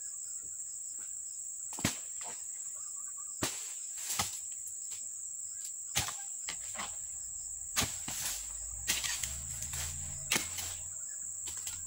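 Steady high-pitched insect drone, broken by sharp knocks every second or two; a low rumble joins about two-thirds of the way through.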